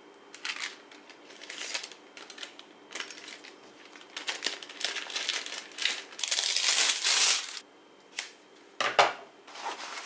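Clear plastic zip bag crinkling as it is handled, in irregular bursts that are loudest about six to seven seconds in. A few short sharp rustles follow near the end.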